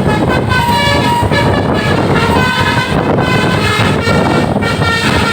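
Indonesian tour bus's 'basuri' telolet horn playing a multi-note tune, its notes stepping from pitch to pitch, over the bus's engine and road noise.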